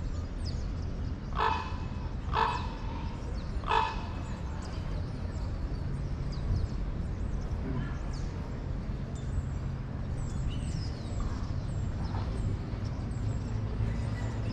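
A raven croaks three times in the first four seconds over a steady low rumble of wind. Faint high chirps of small birds run through the rest.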